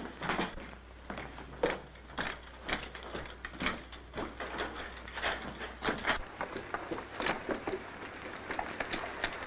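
A run of irregular knocks and clatter, a few a second, over a low hum that stops about six seconds in.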